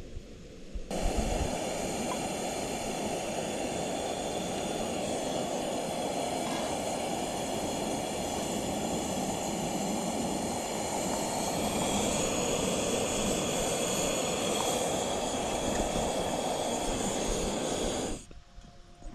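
Camping stove's gas burner running with a steady rushing hiss. It starts abruptly about a second in and cuts off sharply near the end, as the gas canister's valve is closed.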